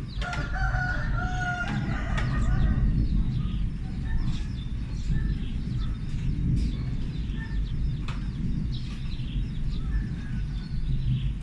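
Continuous low rumble like distant thunder, its source unexplained. A rooster crows once about a second long near the start, and small birds chirp over the rumble.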